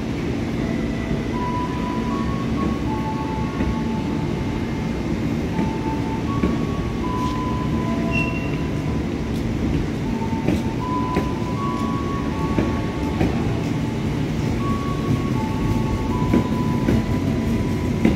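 Passenger coaches of a departing express train rolling along the platform track, a steady rumble with wheels clicking over rail joints now and then. Faint held tones shift in pitch every second or so.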